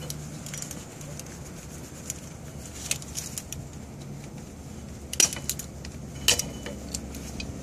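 Small metal clicks and clinks of needle-nose locking pliers working on a drum brake shoe's lever and clip hardware, including a few sharp clicks about three, five and six seconds in, the last with a brief ring. A low steady hum runs underneath.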